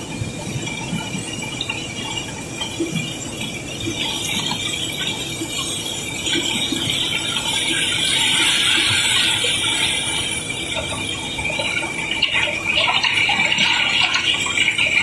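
River cobblestones pouring and clattering against each other as a barge's cargo is unloaded, growing louder about halfway through and again near the end. A thin, steady high squeal runs alongside.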